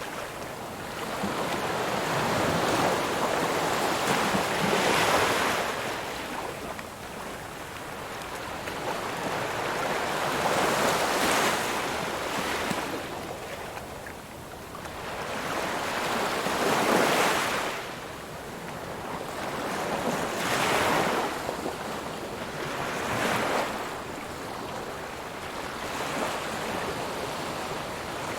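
Ocean waves breaking on a shore, one after another, each surge swelling and washing back every few seconds.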